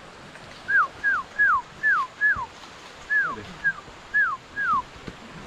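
A series of about nine short whistled notes, each sliding down in pitch. Five come at about two a second, then after a brief gap four more.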